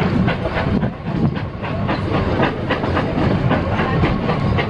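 Narrow-gauge passenger train rolling along, its wheels clicking over the rail joints over a steady low rumble.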